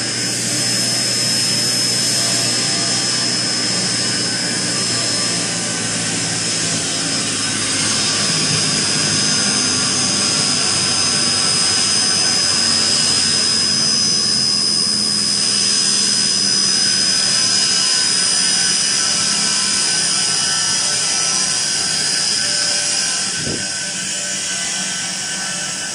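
Ginhong ZX-11 inline high shear mixer, a rotor-stator emulsifying pump driven by an electric motor, running steadily: an even mechanical noise with a constant high whine.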